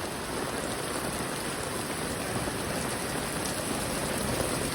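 Heavy rain pouring down steadily, a constant hiss of rain falling on the ground and surfaces.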